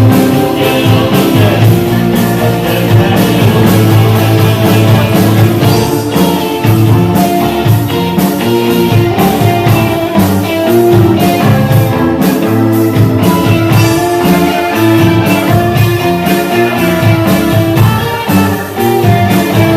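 Rock band playing an instrumental passage, guitar to the fore over a steady drum beat.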